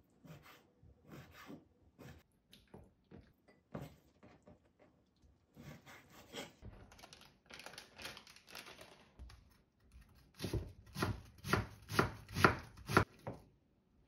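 Chef's knife slicing raw squid on a wooden cutting board in soft, repeated strokes, then plastic bag rustling, then a run of loud knocks about two a second near the end.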